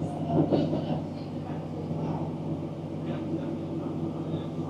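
Diesel passenger train heard from inside the carriage while running between stations: a steady low engine drone with the rumble of the train on the track.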